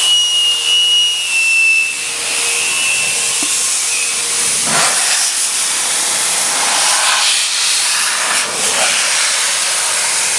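BikeMaster motorcycle detailing blow dryer running, a loud rushing hiss of blown air. A high motor whine sits on top at first and fades after about three seconds, and the air rush then swells and dips a few times.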